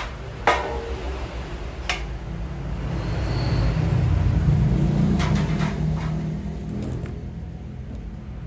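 Steel sewing-machine table-leg frames knocking sharply against the plywood tabletop and each other as they are handled, two knocks early on and a few more in the second half. A low rumble swells through the middle and fades.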